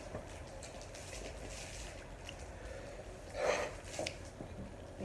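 Quiet room with a single loud, half-second breath from a person about three and a half seconds in, followed by a faint click.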